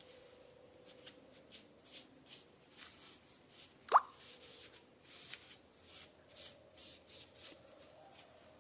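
Soft rustling and light ticks of hands handling orchid leaves and wiping them with a damp cotton pad. About four seconds in there is a single short, sharp squeak that rises quickly in pitch.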